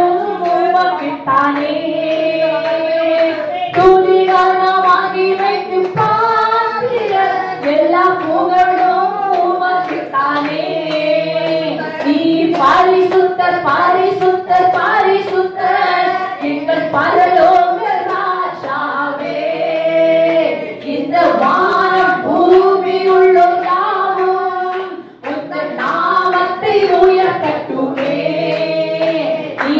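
A woman singing a Christian worship song into a handheld microphone in long melodic phrases, with hands clapping along.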